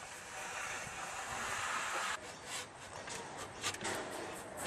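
Fiberglass water rocket sliding along a metal guide rail onto its launch tube: a steady rubbing scrape for about two seconds that cuts off, then a few light clicks and one sharp click near the end.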